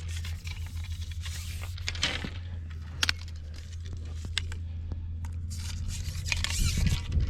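Irregular scraping, rustling and clicking noises over a steady low hum.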